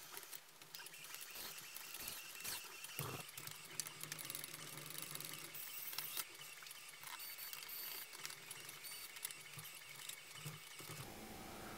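Faint handling noises: small clicks, taps and scrapes of hands fitting a stepper motor and extruder bracket onto a 3D printer frame and handling its wiring.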